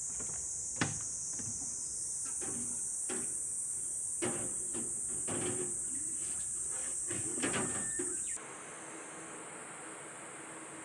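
Steady high-pitched insect chorus, with scattered knocks and clicks from plant pots being handled on a wooden deck. About eight seconds in it cuts off abruptly to a quieter, even indoor hiss.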